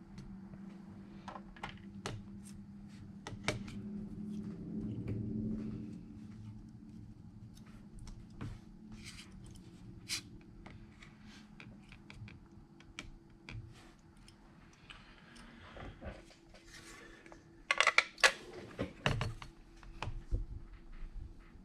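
Scattered light clicks and taps of small repair tools and phone parts being handled, with a cluster of louder clicks about 18 seconds in.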